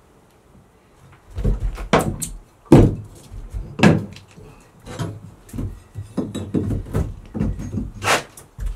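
Hammer striking a flat pry bar wedged under the edge of a boat's floor panel to pry it up: a series of irregular knocks, the loudest about two, three, four and eight seconds in.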